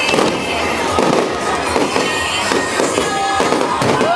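Aerial fireworks display: shells bursting and crackling in rapid, overlapping succession, a continuous barrage of bangs and crackle.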